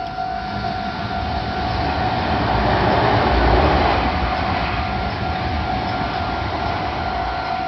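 Meitetsu Nagoya Main Line train passing over a level crossing. Its running noise swells to a peak about three to four seconds in and then eases a little. The crossing's warning bell rings steadily throughout.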